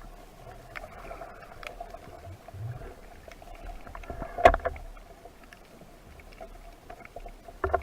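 Underwater sound through a diving camera: scattered small clicks and taps over a steady hum, with one sharp, loud knock about halfway through.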